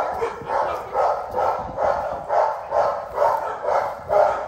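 A dog barking steadily and repeatedly, about two barks a second.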